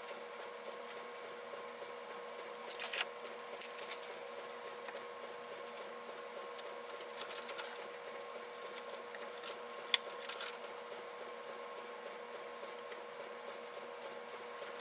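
Steady hum under scattered light clicks and knocks, a few seconds apart, from hands at work taking apart a model railroad layout's wooden benchwork.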